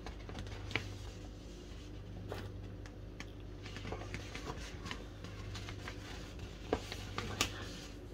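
Faint rustling and handling of a large printed paper pattern sheet, with a few soft clicks and taps, over a steady low hum.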